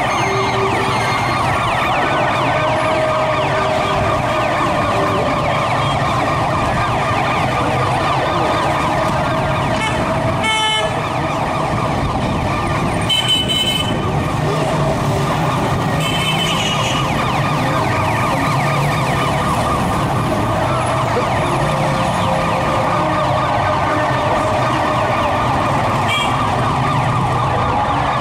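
Several emergency-vehicle sirens wailing at once, overlapping in a loud, steady din over the running of vehicle engines.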